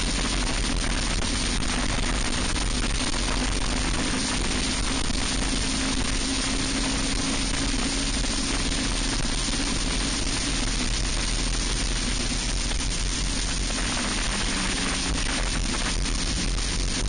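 Racing kart engine running hard at high revs, its pitch climbing slowly and then dropping about twelve seconds in as the kart slows for a corner, heard through heavy wind rush on the onboard microphone.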